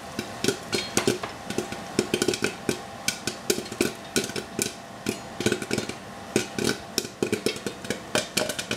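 Rapid, irregular popping and crackling from a hot pan on the stove, several sharp pops a second, over a faint steady hum.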